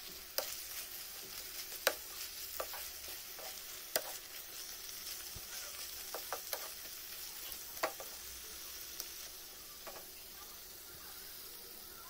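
Chicken masala gravy sizzling in a pan as a spatula stirs it, with sharp clicks of the spatula against the pan every second or two, fewer near the end.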